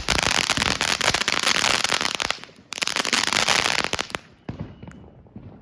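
Small firework fountain (LMBO, a Lil Red Devil rewrap) crackling: a dense stream of tiny pops that breaks off a little over two seconds in, comes back, and dies out about four seconds in, leaving a few last scattered pops as the fountain burns out.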